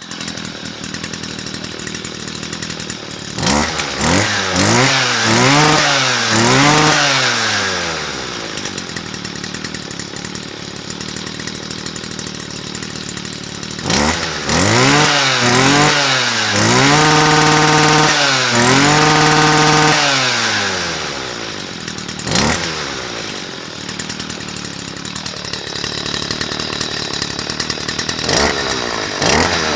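Stihl FS55C brush cutter's small two-stroke engine idling, then revved up and down in quick blips several times. In the middle it is held at high revs for a few seconds before dropping back to idle, with another short blip and more revving near the end.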